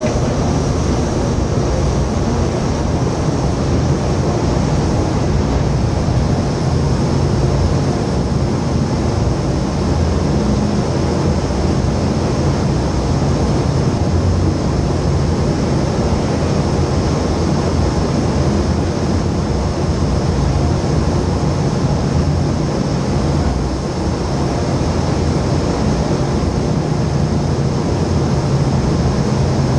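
Vertical wind tunnel for indoor skydiving running, a loud, steady rush of air from its fans with no break.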